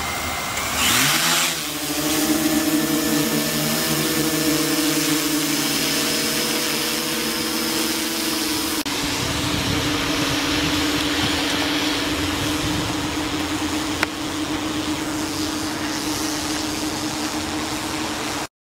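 Quadcopter drone's electric motors and propellers spinning up for takeoff, with a short rush of air about a second in and a rising whine. The whine then settles into a steady hum as the drone climbs. The sound cuts off just before the end.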